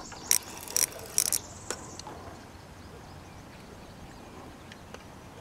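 Fishing reel giving a few short raspy buzzes in the first second and a half while a big hooked fish is played on the rod, then only a faint steady background.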